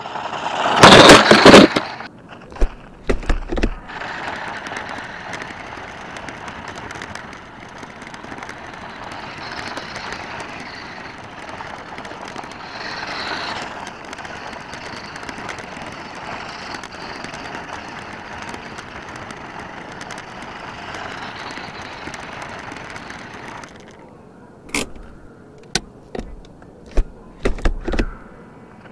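A WPL D12 radio-control mini kei truck reaches the camera with a loud clatter about a second in, followed by a few knocks. Then comes a long stretch of its steady running noise over gritty, needle-covered ground, and a handful of sharp clicks and knocks near the end.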